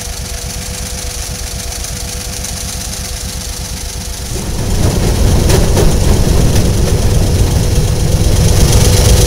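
Railroad motorcar (track speeder) engine running at a steady idle, then opening up and getting louder about four and a half seconds in as the car pulls away along the track. Two sharp clicks come soon after.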